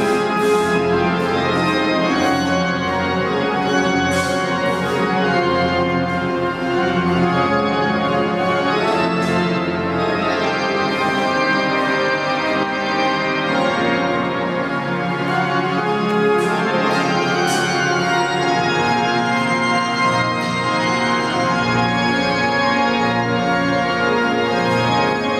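Church pipe organ playing loud, full sustained chords with many tones sounding together.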